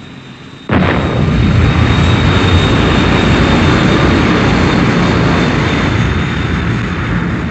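Thunderbird 1's jet engine sound effect: a loud, steady roar that starts suddenly under a second in and eases a little near the end, as the rocket plane comes down on its exhaust.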